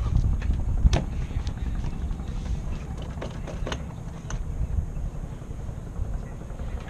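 Rental go-karts waiting with their engines running: a low, uneven rumble, with a few sharp clicks, the loudest about a second in.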